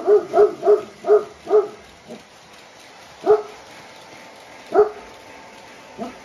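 A dog barking: a quick run of about six barks in the first second and a half, then single barks spaced a second and a half apart.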